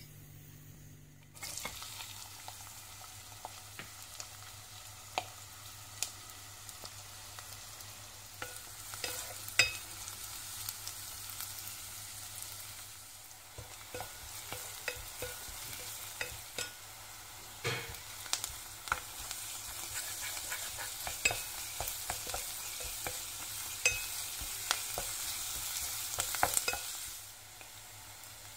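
Chopped onions frying in hot oil in a non-stick pan, a steady sizzle with a spatula stirring and knocking against the pan in irregular clicks. The sizzle starts suddenly about a second in and drops away near the end.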